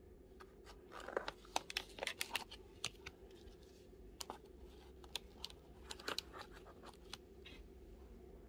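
Fingers pressing and rubbing on the clear plastic holder of a silver bar, giving a run of small crackles and clicks in two bouts, the first about a second in and the second about four seconds in, over a faint steady hum.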